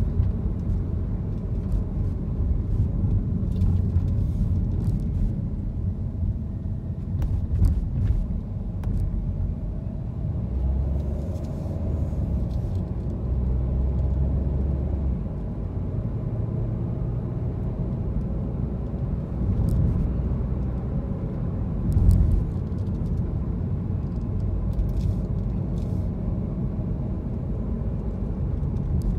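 Steady low rumble of a car driving on city streets, engine and road noise, with a few faint clicks and one louder thump about three quarters of the way through.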